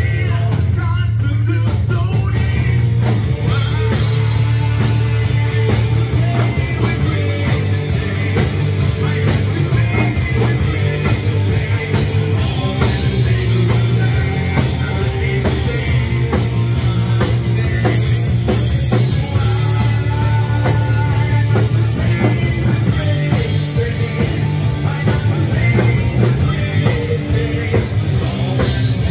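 Live rock band playing: a male singer over distorted electric guitar, bass guitar and drums, with a loud, heavy low end.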